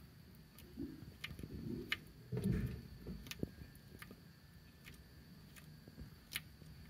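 Greek tortoise (Testudo graeca) biting and tearing at fresh leaves: a series of small crisp clicks under a second apart, with a few soft low bumps in the first three seconds.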